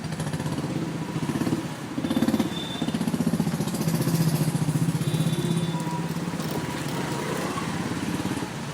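City street traffic, dominated by a nearby motor vehicle engine running with a fast pulsing beat. It swells louder about two seconds in and eases off near the end.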